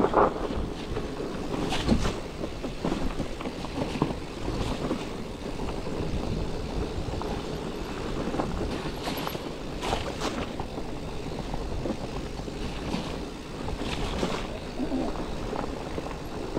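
Steady rushing noise of a bicycle being ridden along a dirt trail: wind on the microphone and tyres rolling, with a few short knocks and rattles from bumps.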